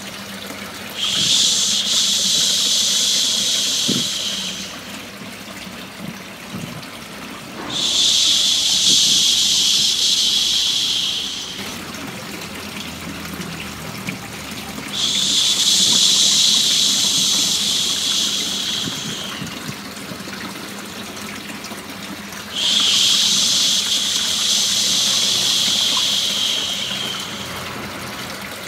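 A person shushing a long drawn-out 'shhh', about four seconds each time, repeated four times about every seven seconds, the kind of shushing used to soothe a baby to sleep. Under it runs a steady bed of running water.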